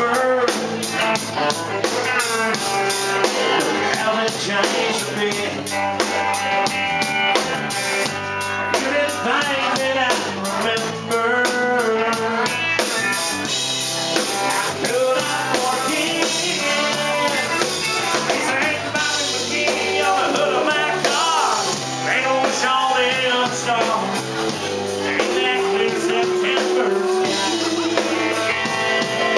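Live country rock band playing: a male vocalist singing into a handheld microphone over electric guitar, electric bass guitar and a drum kit keeping a steady beat.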